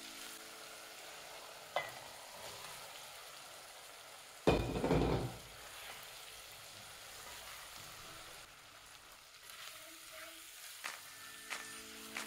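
Onion-and-tomato base sizzling in hot oil in a pot. About four and a half seconds in, chunks of peeled green banana (matoke) are tipped in with a loud, brief rush of noise. The sizzle carries on, with a few sharp clicks of a spatula against the pot near the end.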